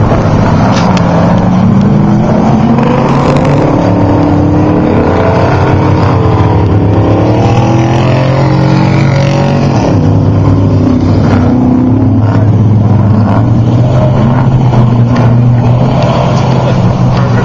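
Engines of Class 1450 off-road race trucks running hard, several at once, their pitch rising and falling as they rev.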